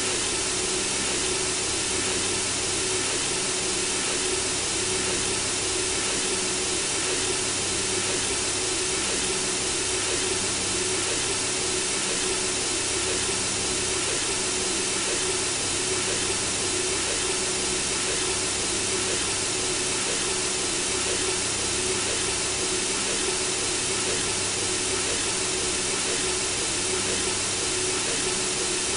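Synthesizer-generated white noise: a steady, unchanging hiss with a faint steady tone underneath, meant to mimic the sound of blood circulating in the womb to lull a baby to sleep.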